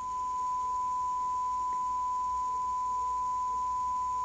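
Akai GXC-706 cassette deck playing back a steady 1 kHz test tone, used to set the tape speed. The tone sits a hair above 1 kHz because the deck is running very slightly fast while its motor speed pot is being trimmed.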